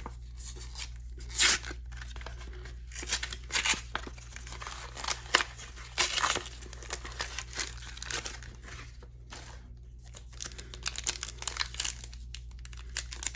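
Trading card blister packaging and foil booster pack wrappers being torn open and crinkled by hand, in a run of irregular rips and rustles.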